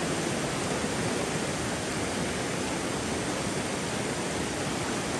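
Fast-flowing river rushing steadily around a boulder, an even noise with no breaks.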